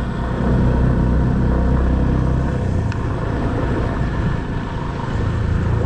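Motorcycle engine running while riding over rough unpaved ground, its note shifting and climbing near the end.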